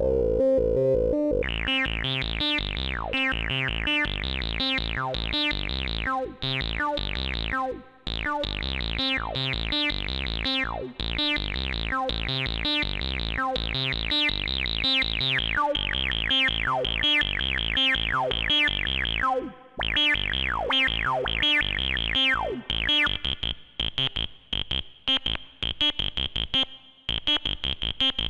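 Kassutronics VCO 3340 Eurorack analogue oscillator playing a fast sequenced pattern of notes, each sweeping downward, with a few brief gaps. The notes become shorter and choppier near the end.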